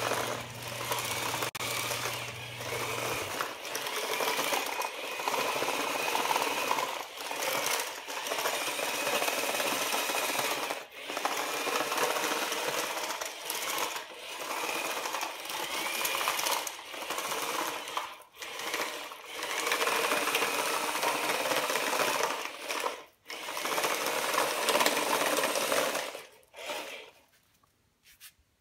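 Small electric gear motors of a homemade tracked robot whirring as its tracks drive it over a tile floor, in runs of a few seconds with brief stops between them. It goes quiet near the end.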